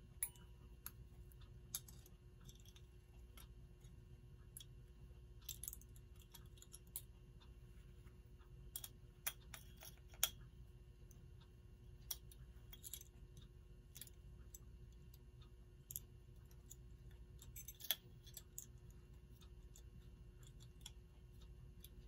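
Faint, irregular clicks and light metallic taps as small gears and parts of a Telechron clock movement are handled and set back in place, over a low steady hum.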